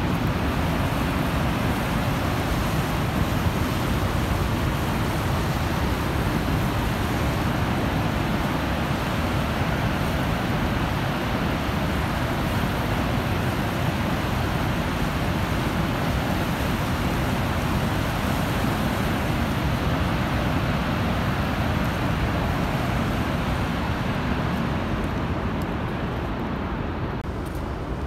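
Niagara Falls rushing: a loud, steady, even roar of falling water, easing a little near the end.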